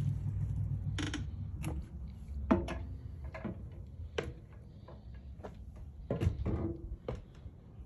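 Irregular knocks and clicks of someone stepping up into a travel trailer and moving across its floor, with a couple of short creaks. A low rumble fades out in the first couple of seconds.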